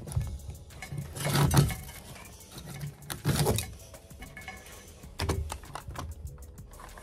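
Irregular knocks and clatter of hand work on cables and rafters, with two louder knocks about one and a half and three and a half seconds in.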